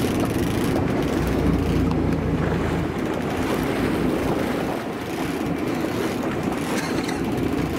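Sport-fishing boat's engine running steadily, its low hum easing off about three seconds in, under a steady rushing noise of wind and water.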